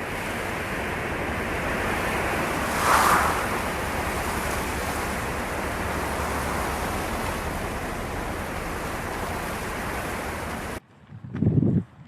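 A steady rushing noise, like wind buffeting the microphone, swelling briefly about three seconds in. Near the end it cuts off abruptly and is followed by a short, lower sound.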